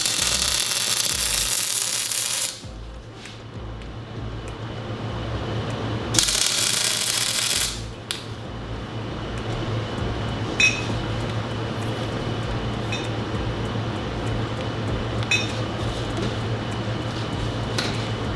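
Welding arc crackling in two bursts, the first about two and a half seconds long and the second about a second and a half, over a steady low hum. A few light metallic ticks follow later.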